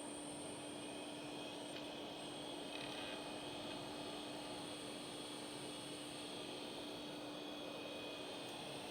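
Steady electrical hum and fan noise from running computer equipment, with a low hum, a high-pitched whine and a soft hiss, and no keystrokes.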